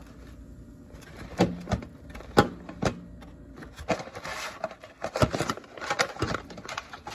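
Kitchen clatter: irregular sharp knocks and clicks of cookware being handled on a stovetop, starting about a second in.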